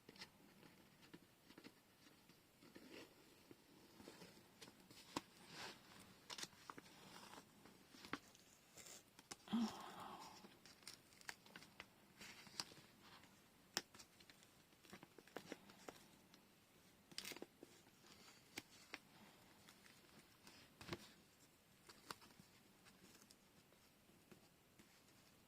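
Faint crafting handling noise: washi tape being torn and handled, with paper rustling and scattered small taps and clicks on the desk. One slightly louder short sound comes about ten seconds in.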